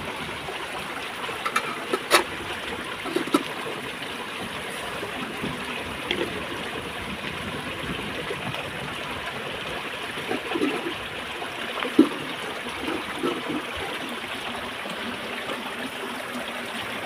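Shallow rocky stream trickling steadily, with a few sharp clinks and knocks of metal cookware and a plate being handled, the loudest about two seconds in and another about twelve seconds in.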